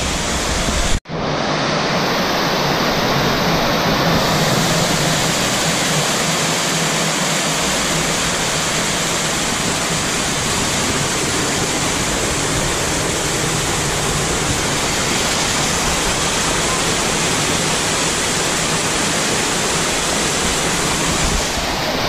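Small creek waterfall pouring over layered rock ledges, heard close up: a steady, full rush of falling water, broken only by a momentary dropout about a second in.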